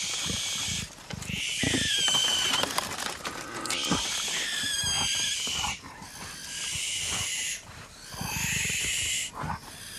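Repeated shrill, rasping screeches from young animals sheltering in a tree hollow, about five calls of one to two seconds each, some falling in pitch, over light scuffing.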